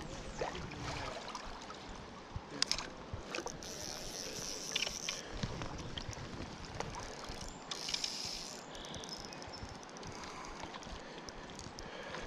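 River water running and splashing, with a few sharp knocks and clicks, the loudest about two and a half seconds in.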